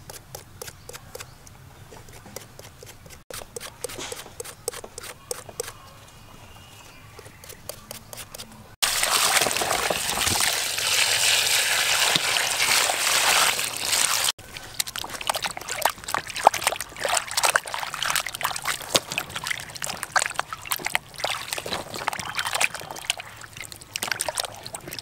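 Water pouring in a steady stream into a plastic basin of vegetables for about five seconds, starting about a third of the way in, then hands sloshing and rubbing the vegetables in the water with many small splashes. Before the pour there are only faint light clicks.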